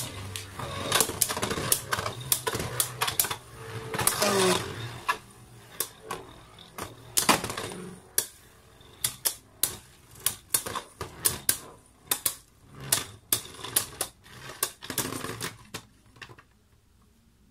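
Irregular sharp clicks and clacks of small hard plastic parts being handled, a quick run of them that stops about 16 seconds in.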